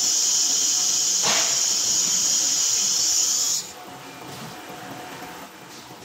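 Compressed air hissing loudly and steadily from an ATC CNC router's spindle head, with a brief sharper puff about a second in, then cutting off abruptly after about three and a half seconds. This is the air blast of a pneumatic automatic tool change.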